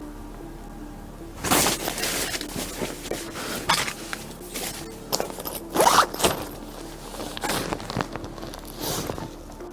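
Irregular rustling and scraping of tent fabric and gear, in a string of sharp bursts, the loudest a little past the middle. Quiet background music with steady low tones runs underneath.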